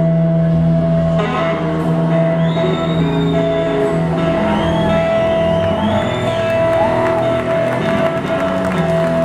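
Live band playing a slow soul ballad: an electric slide guitar lead on a Gibson SG plays sliding, bending melody notes over long held chords and a steady low note.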